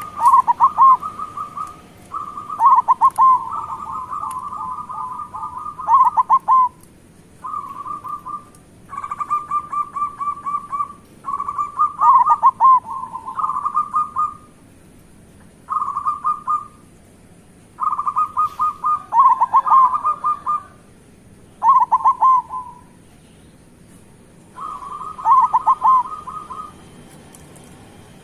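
Local zebra doves (perkutut) singing, about nine phrases in a row. Each phrase is a quick, even rattle of short notes on one pitch, running into loud, falling 'kung' coos. At times two voices overlap.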